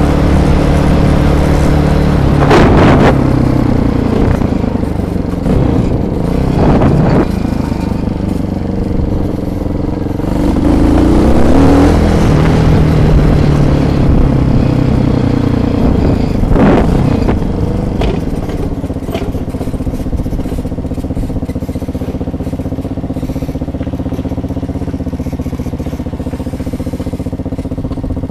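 Bashan quad bike's engine running while riding, its pitch rising and falling with the throttle, then settling to a lower, steadier note over the last third. Three brief louder noises cut across it along the way.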